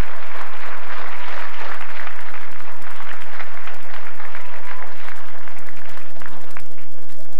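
Audience applauding in an auditorium, the clapping thinning out and dying away near the end.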